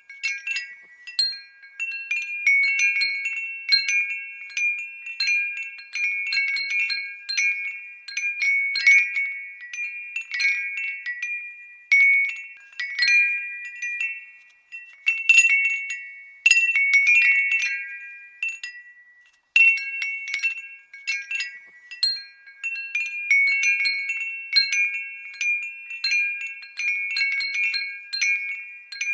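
Glass windbell tinkling: the clapper strikes the glass at irregular intervals, each strike ringing briefly at a few high pitches, with a short lull about two-thirds of the way in.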